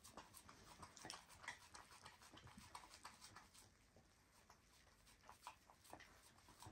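Faint, irregular wet clicks and smacks of a Border Collie puppy's tongue licking at bath foam.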